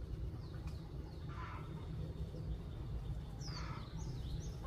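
Several short, high bird chirps, each falling in pitch, bunched in the second half, over a steady low rumble, with two brief rustles about one and a half and three and a half seconds in.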